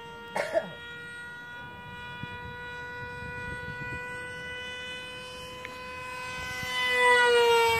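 Motor of a handmade RC Su-37 model plane in flight, a steady high whine that grows louder near the end and drops a little in pitch as the plane passes close.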